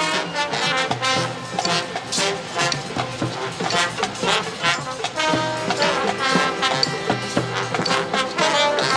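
High school marching band playing, with brass (trombones and trumpets) carrying the tune over a steady drumline beat.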